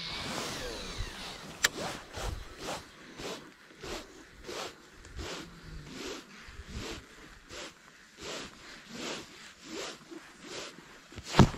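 Okuma Citrix baitcasting reel being cranked to retrieve a lure, a short whirring stroke about twice a second. A sharp click about a second and a half in, and a louder knock near the end.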